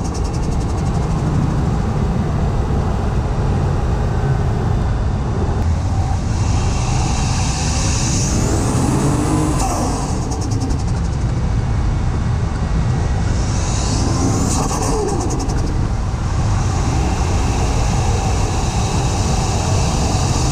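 Toyota Chaser's 1JZ-GTE turbocharged straight-six pulling hard under acceleration, heard from inside the cabin. Twice, the turbo's whistle rises as it spools, and each time a rapid fluttering chatter of compressor surge follows when the throttle is lifted.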